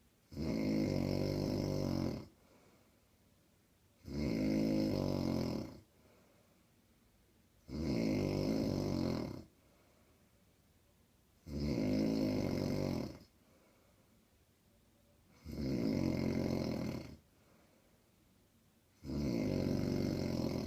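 A woman snoring loudly: six long snores, each lasting nearly two seconds, evenly spaced about every four seconds, with quiet between them.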